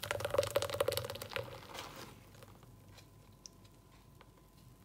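Thick blended spinach juice pouring from a blender jar onto a paper-towel-lined strainer, splashing and gurgling, tapering off about two seconds in; then only a few faint ticks.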